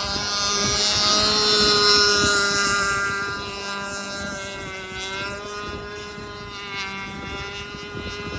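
Radio-controlled model boat motor running at speed with a steady high-pitched whine. It is loudest in the first few seconds and then eases off a little, with a slight dip in pitch about five seconds in.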